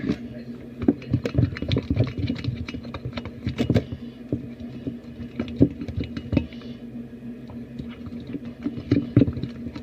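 Slime being stirred with a popsicle stick as activator is mixed into the glue: irregular sticky clicks, squelches and taps, busiest in the first few seconds, over a steady low hum.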